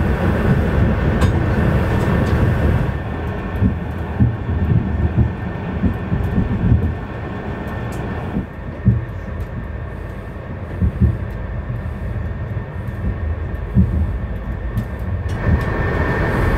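Renfe Alvia train heard from inside a passenger carriage: a steady low running rumble with irregular knocks from the wheels over rail joints and points. The train is slowing into a station, and the rumble quietens in two steps. A steady high tone comes in near the end.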